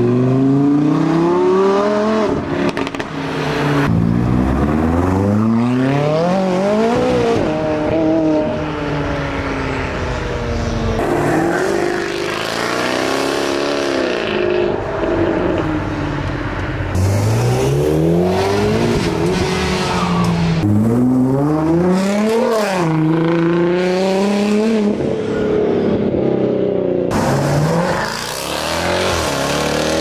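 Supercar engines, a Lamborghini Huracán Performante's V10 among them, accelerating hard away one after another. The pitch climbs and drops back at each upshift, over and over.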